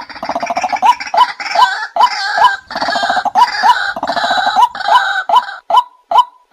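White-breasted waterhen calling: a run of short, upward-hooked 'kwak' notes, about two or three a second, under loud buzzy, rattling croaks. The croaking stops near the end, leaving only the repeated notes.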